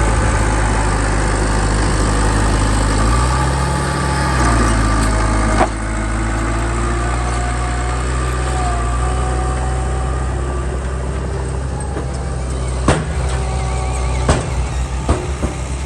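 Heavy machine's engine running steadily, rising briefly in pitch about three seconds in, with a sharp knock at about five and a half seconds and a few more sharp knocks near the end.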